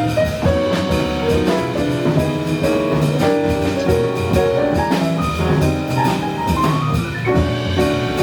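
Live jazz combo playing: drum kit, bass and piano under a lead line of quick stepped notes, with a rising run about seven seconds in.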